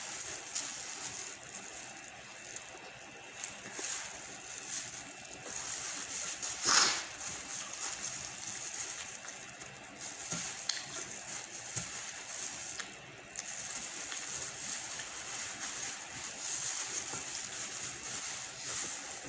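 Wet eating sounds of someone chewing pancit noodles and hotdog close to the microphone, with one sharp click about seven seconds in.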